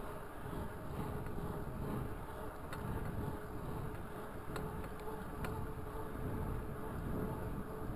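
Raleigh Talus 29er mountain bike rolling at speed on pavement: a steady buzzing hum from the tyres and drivetrain over low wind rumble on the microphone, with a few faint ticks.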